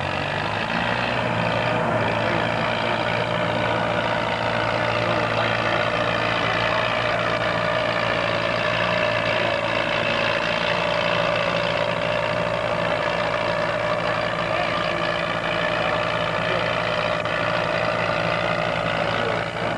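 Farmall tractor engine running with a steady note under load as it pulls a tractor-pulling sled.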